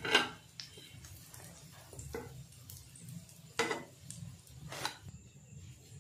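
Steel spatula scraping and clicking against a nonstick frying pan in several separate strokes as egg-coated patties are lifted out of shallow oil, with a faint sizzle of the oil underneath.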